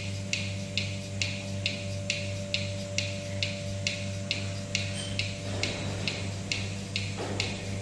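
Single-bucket milking machine running: the belt-driven vacuum pump unit hums steadily while the pulsator clicks evenly, a little over twice a second, alternating the teat cups between milking and rest.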